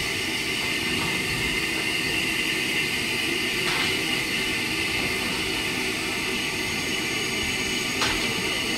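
SR Schools class steam locomotive No. 926 hissing steadily as steam escapes around its wheels, with a low rumble underneath. Two short knocks come about four and eight seconds in.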